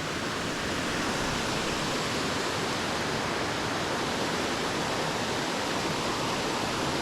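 Waterfall rushing steadily, the falling water making an even hiss.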